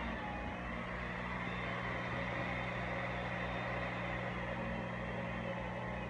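Electric water pump running with a steady hum, drawing water through a PVC siphon pipe that is vacuuming waste off the bare bottom of an aquarium.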